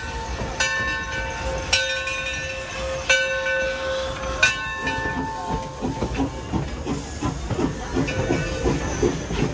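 Bell of the steam locomotive Torch Lake ringing, struck about once a second as the engine pulls in. The bell stops about five seconds in, and the passenger cars roll past with a quick rhythmic clatter of wheels on the rails.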